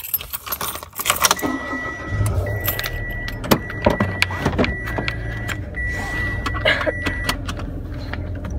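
Keys jangling with clicks and knocks as someone gets into a car, then the car's engine starts about two seconds in and runs at idle. A steady high tone sounds on and off over the idle.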